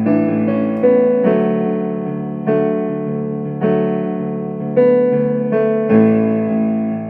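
Casio Privia PX-150 digital piano played in a slow worship-song accompaniment: sustained chords with a new chord or bass note struck about once a second, each fading until the next.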